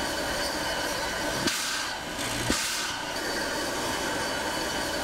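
Steam locomotive W 933 standing at the platform, giving a steady hiss. Two sharp knocks sound about one and a half and two and a half seconds in.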